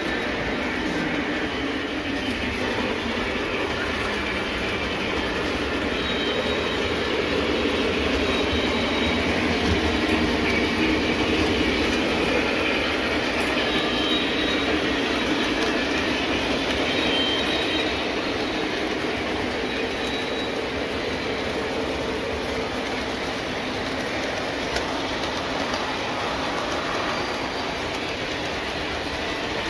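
Model trains running on the layout's track: a steady running noise of motors and wheels on the rails.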